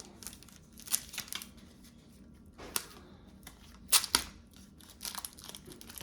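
Foil trading-card pack wrapper being torn open and crinkled, with a handful of sharp crackles, the loudest around four seconds in.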